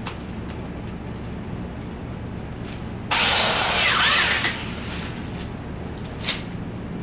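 A power drill runs for about a second and a half, starting about three seconds in, for drilling out the pop rivets in a VW Beetle door. A few light clicks follow near the end.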